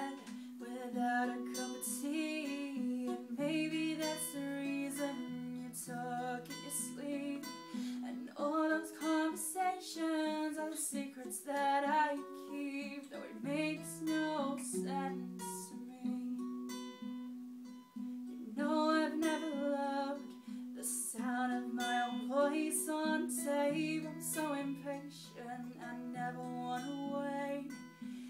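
A woman singing while accompanying herself on an acoustic guitar.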